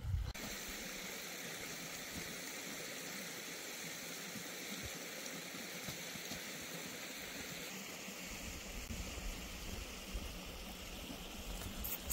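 Steady rush of flowing water in a mountain stream, with a low rumble coming in about two-thirds of the way through.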